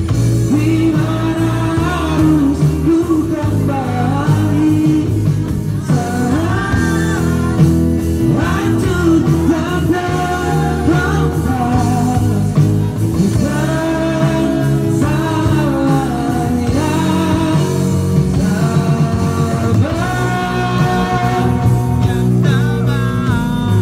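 Live rock band playing a song: a singer's voice over bass, guitar and stick-played percussion, steady and loud throughout.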